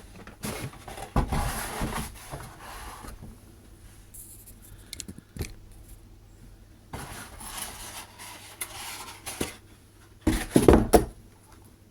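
Handling noises from unpacking a new sewing machine and its accessories: stretches of rustling and rubbing with a few small clicks, then a short louder clatter near the end.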